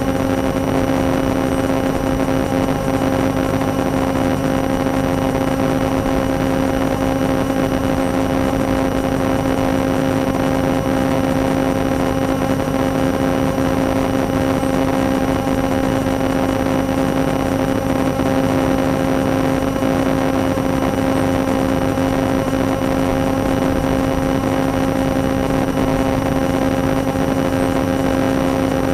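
A steady, unchanging mechanical hum with a constant low tone and its overtones over a noisy rush.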